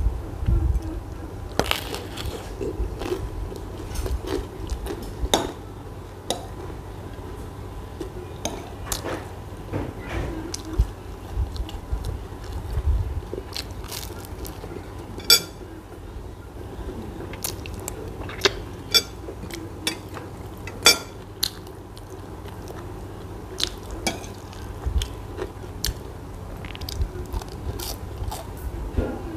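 Eating sounds: a metal spoon clinking against a small glass bowl and plate, with biting and chewing on a bread roll. The clicks are scattered and irregular, and one clink about halfway through rings out briefly.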